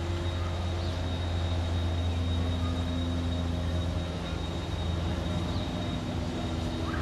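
A steady low machine hum with several steady tones over it and a thin high whine, plus a few faint short chirps.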